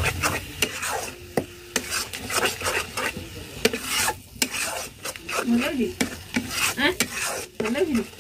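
Metal spatula scraping and stirring a frying masala paste in an iron kadai, in quick repeated scrapes against the pan, over a steady sizzle from the spices frying in oil.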